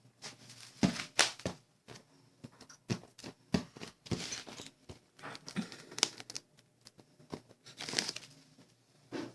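A small pet rummaging, making irregular crinkling and tearing sounds mixed with sharp clicks, in uneven bursts about once a second.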